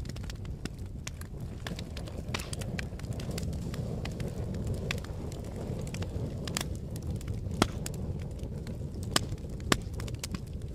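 Fire crackling and popping over a low steady rumble, with many small snaps and a few sharper pops in the second half.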